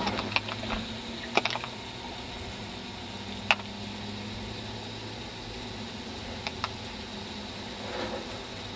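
Steady low hum and hiss with a few short sharp clicks and taps: a cluster in the first second and a half, a single sharp one about three and a half seconds in, and two more close together later.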